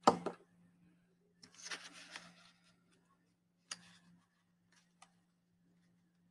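Paper craft being handled at a table with a glue stick: a sharp knock at the start, then about a second of paper rustling and rubbing, then a single click and a couple of faint ticks.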